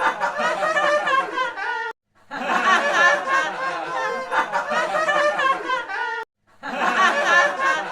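Many overlapping high-pitched voices laughing and chattering, played as a looped sound clip. It cuts out briefly about two seconds in and again about six seconds in, then starts over.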